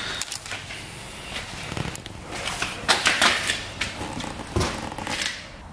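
Cat eating: a run of irregular wet crunching and smacking clicks from chewing, with a heavier knock about four and a half seconds in.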